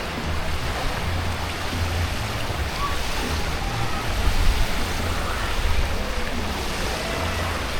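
Steady rush of splashing water in a water park, with faint distant voices mixed in.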